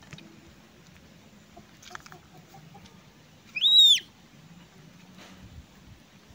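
A single short, loud, high-pitched animal call that rises and then falls, a little past the middle. Otherwise only faint background with a few soft knocks.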